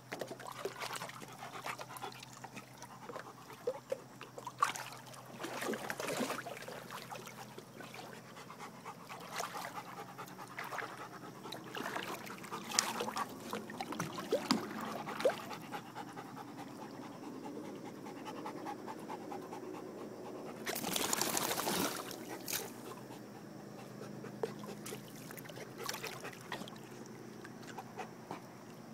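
Bernese mountain dog panting as it swims, with water lapping and trickling around it. About two-thirds through there is a louder rush of noise lasting about a second.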